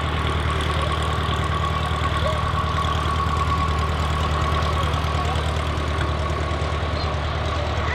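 Airbus Beluga XL's twin Rolls-Royce Trent 700 turbofans running at taxi power as the aircraft rolls slowly along the taxiway: a steady low rumble under a steady high whine.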